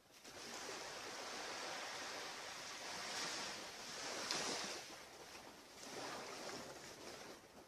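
Ocean surf washing onto a beach: a steady hiss of breaking waves that swells and eases a few times.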